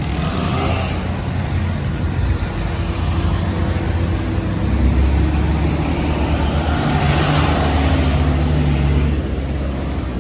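Street traffic: the low rumble of a motor vehicle engine running close by, growing louder about halfway through with the whoosh of passing traffic, then easing off near the end.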